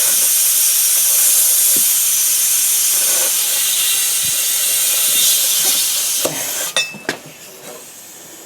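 Compressed air hissing steadily into a small tubeless lawn tractor tire as someone tries to seat the bead, air escaping around the bead that is not yet seated. The hiss cuts off suddenly about six seconds in, followed by a couple of sharp clicks.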